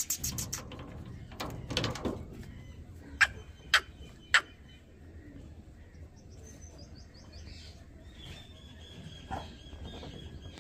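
Birds calling in an aviary: a quick run of sharp, short calls at the start, three more single sharp calls a few seconds in, then faint high chirps and a thin, steady whistled note in the second half.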